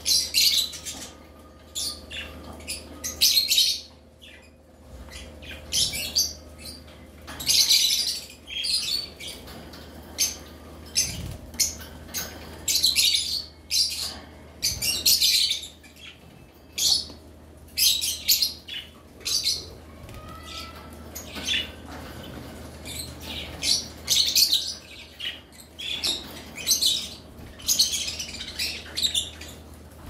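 A group of lovebirds chattering: short high-pitched chirps and squawks in repeated bursts, roughly every second, with a few brief pauses.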